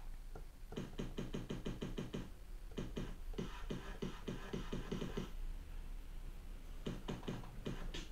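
Drum samples triggered from a Pioneer DDJ-SX2's performance pads in Serato's sampler, played as quick runs of hits, several a second. The runs break off briefly twice. The player hears the hits lagging behind his pad presses and blames latency on his Windows computer.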